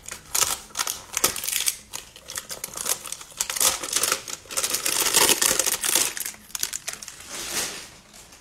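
Cardboard trading-card hanger box being handled and opened, its packaging crinkling and rustling in irregular bursts, busiest in the middle and dying away near the end.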